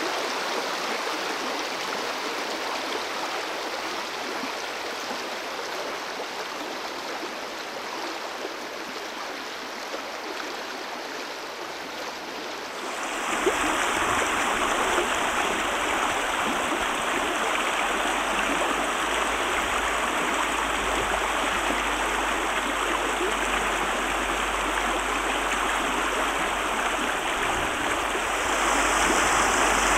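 Shallow stream of clear water running over a rocky, pebbly bed: a steady rush of water. About 13 seconds in it grows louder and fuller, as over a rougher riffle.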